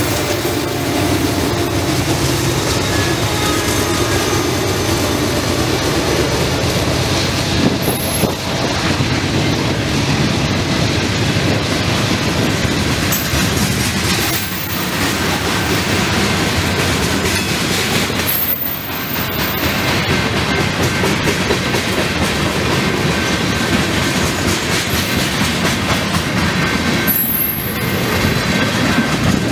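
Freight train rolling past at speed: the steady rumble of steel wheels on rail with clickety-clack over the joints, and a few brief high wheel squeals. The last diesel locomotives' engines pass at the start, then covered hopper cars roll by.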